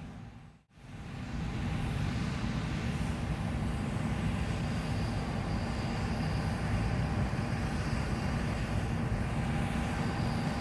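John Deere S780 combine running steadily while straight-cutting spring wheat: a continuous low engine and machinery drone with a faint steady whine. It drops out briefly under a second in.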